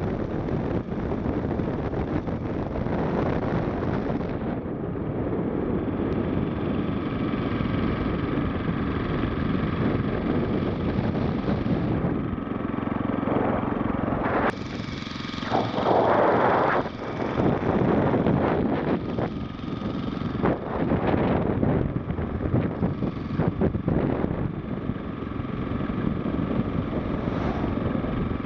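5 hp Briggs & Stratton single-cylinder lawnmower engine driving a homemade motorized bicycle along the road, running steadily at speed, with a louder surge about halfway through.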